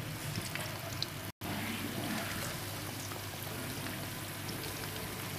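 Besan-battered chicken pakoras frying in hot oil in a karahi: a steady sizzle with scattered small pops and crackles. It breaks off for an instant a little over a second in.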